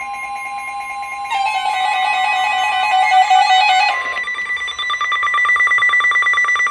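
Emergency Alert System alert tones: a steady electronic tone, changing about a second in to a denser set of layered tones, then from about four seconds in a fast, evenly pulsing beep.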